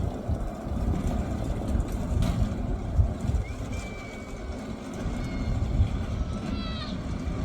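Rail sled running along its track: a continuous low rumble and rattle from the wheels, with small knocks.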